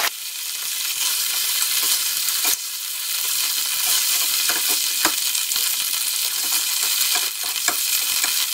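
Chicken livers sizzling in hot oil in a frying pan, a steady hiss. A few sharp taps and scrapes come from the wooden spatula against the pan as the livers are lifted out.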